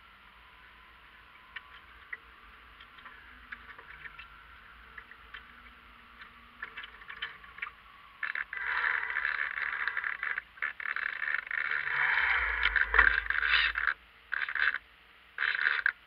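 Water lapping and splashing against the hull of a radio-controlled Marblehead yacht, close to its onboard camera: faint lapping with small ticks at first, then from about halfway in loud bursts of rushing water that start and stop abruptly as the boat turns through a tack.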